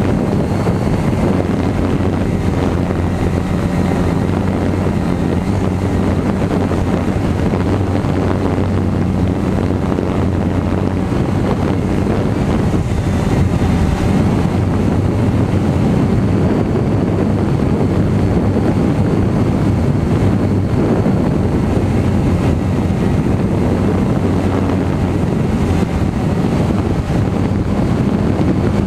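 Twister Quattro quadcopter's electric motors and propellers running steadily in flight, a low hum under wind rushing over the on-board camera's microphone.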